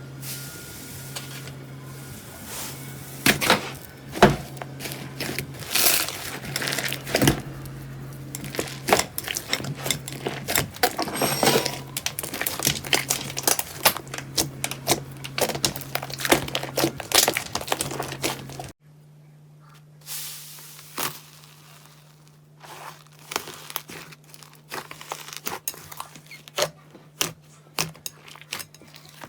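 Slime being squeezed and stretched by hand, giving a rapid, irregular run of sticky clicks, pops and crackles over a low steady hum. About two-thirds of the way through it switches to another slime clip with a quieter background and sparser pops.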